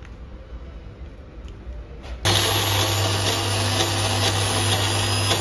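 Electric kitchen blender switching on about two seconds in and running at one steady speed for a short spell of blending.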